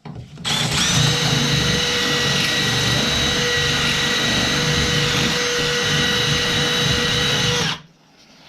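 Electric power drill running at a steady speed for about seven seconds, with a steady high whine over its motor hum, then stopping.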